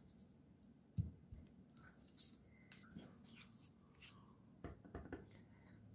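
Faint handling sounds of a clear acrylic stamp block and cardstock strip on a craft mat: a soft knock about a second in, then scattered light taps and clicks.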